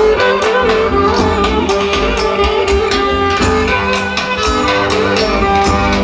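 Roman havası dance music with a steady drum beat and a string-instrument melody.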